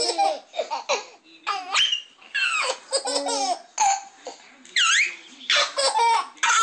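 Twin babies laughing hysterically in short, high-pitched bursts with brief pauses between them.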